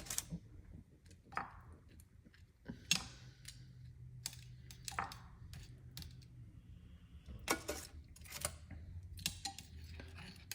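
Light, irregular clicks and taps of kitchen utensils against a bowl and dish as chicken pieces are dipped in marinade and set down, about a dozen in all, over a faint steady low hum.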